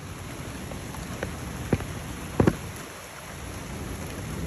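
Steady rain falling, with a few sharp knocks between about one and two and a half seconds in, the loudest a quick pair near the middle.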